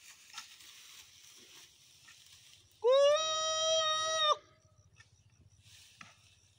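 A single long, high call in a man's voice. It swoops up quickly, holds one pitch for about a second and a half, and then cuts off.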